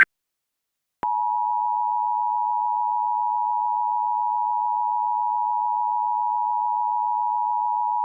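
Emergency Alert System attention signal: two steady tones sounded together, starting about a second in without change. It is the alarm that announces an emergency alert message is about to be read.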